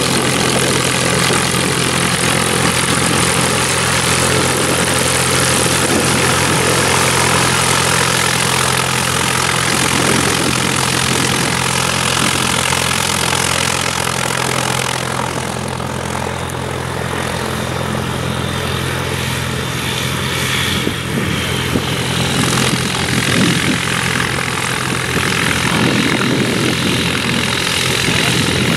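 Beagle Pup light aircraft's piston engine and propeller running at low taxiing power: a steady drone, dipping slightly about halfway through.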